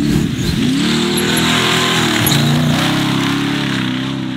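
Off-road race car engine revving hard at speed, its pitch dipping and climbing back twice as the throttle is lifted and reapplied, over the noise of tyres on sand and dirt.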